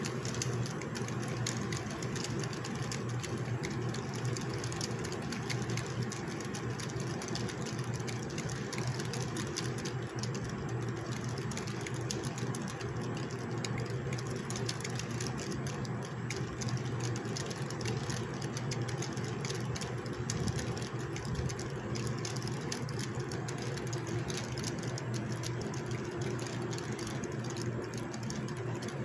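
Model freight train rolling past on layout track: a steady mechanical running sound, with fast, continuous clicking of the cars' wheels over the rails.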